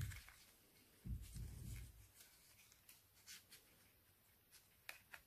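Faint rustling and light ticks of thin card being handled on a tabletop as a paper puppet's leg is fixed with a split pin, with a low dull bump about a second in.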